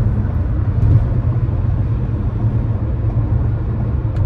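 Steady low rumble of a car on the move, with no words over it.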